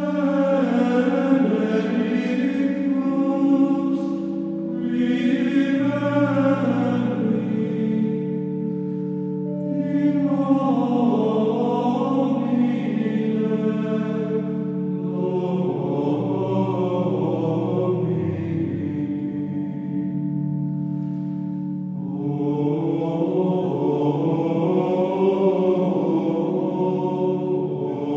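Sacred choral chant sung in phrases of a few seconds each over steady held low notes.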